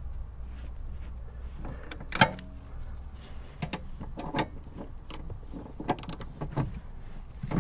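Socket ratchet clicking with scattered metal knocks as the bolts holding a steel fire-extinguisher bracket to a car seat mount are tightened; the loudest is a single sharp click about two seconds in. A low steady hum runs underneath.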